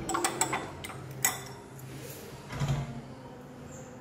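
Metal fork beating eggs in a ceramic bowl, clinking against its side: a quick run of clinks in the first half-second, one sharper clink a little over a second in, then quieter.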